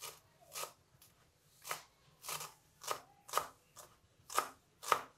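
Large kitchen knife chopping fresh coriander finely on a wooden cutting board: about nine separate cuts at an uneven pace, each a short knock of the blade on the wood.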